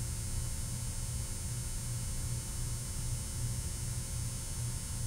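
Steady low electrical hum with a faint hiss, slightly wavering in level, with no distinct clicks or strokes.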